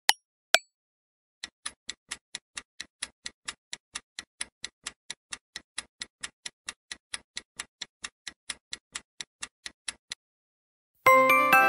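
Clock-ticking sound effect for a quiz countdown timer: quick, even ticks, about four a second, that run for some nine seconds and then stop. About a second later a loud chime of several tones rings out and fades, as the countdown runs out. Two sharp pops are heard at the very start.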